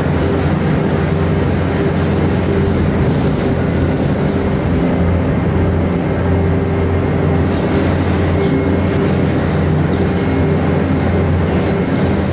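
Terex Fuchs MHL 350 material handler running hard with its Kinshofer drum cutter grinding salt off a tunnel face: a loud, steady mechanical grind over a deep machine hum.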